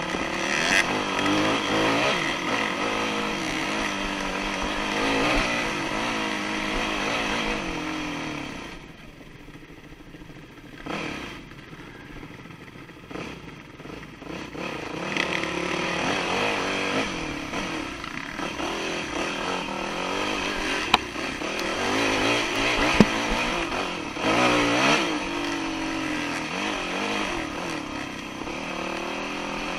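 Dirt bike engine revving up and down under the rider's throttle on a trail, dropping to a quieter stretch of low revs about nine seconds in before pulling harder again from about fifteen seconds. A couple of sharp knocks come later on.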